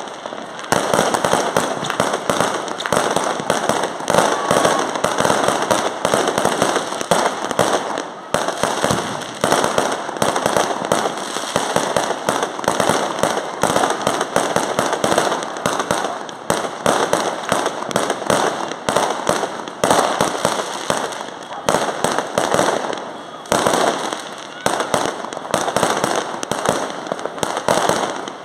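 Aerial fireworks bursting overhead in rapid, continuous volleys of bangs and crackles, with a few brief lulls.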